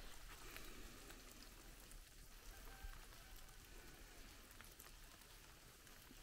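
Near silence: a faint, even hiss with a few light drips of rainwater.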